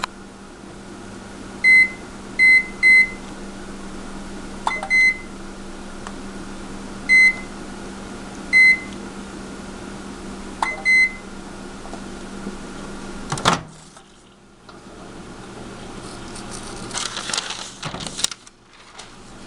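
A faulty microwave oven running with a steady hum, its fault being that it runs when the door is opened. Eight or so short, high beeps sound during the first eleven seconds. About thirteen and a half seconds in, a click, and the hum stops.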